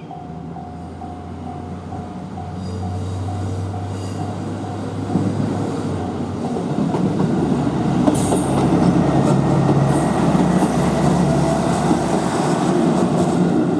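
A KiHa 25 diesel railcar passing over a level crossing: the crossing bell rings in steady pulses while the engine's low hum grows, then about five seconds in the train's wheel rumble and clatter over the rails take over, loudest through the second half.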